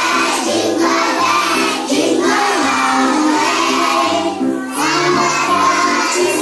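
Children's voices singing a Christmas song over an instrumental backing with a steady bass line.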